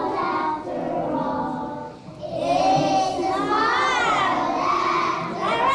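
A group of young children singing together in unison, their voices getting louder and fuller about two seconds in.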